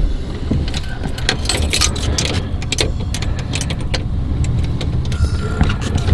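Low, steady engine and road rumble inside the cabin of a 1953 Studebaker Commander. Over it come a run of light clicks and jingles as a hand works the dashboard knobs and switches.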